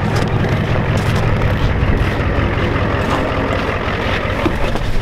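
Ford F250's 7.3 IDI diesel V8 idling steadily while it warms up after a cold start.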